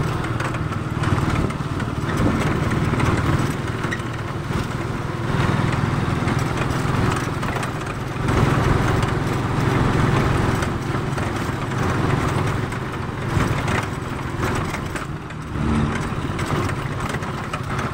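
Small vehicle engine running steadily as the vehicle drives along a road, with wind and road noise; the loudness swells and dips a little.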